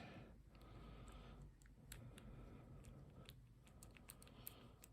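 Faint scattered clicks and light scraping of a metal lock pick in a padlock's keyway, the pick stuck in the lock and being worked loose.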